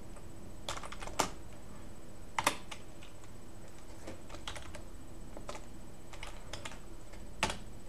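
Typing on a computer keyboard: irregular key clicks, with a few louder key presses about a second, two and a half seconds and seven and a half seconds in.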